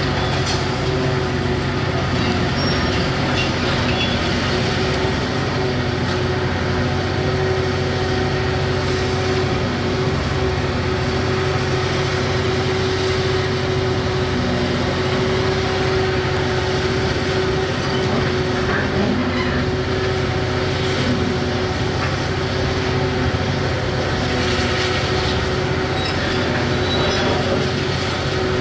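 Hitachi 670 LCH excavator's diesel engine running steadily under work, with a constant hydraulic whine over the drone.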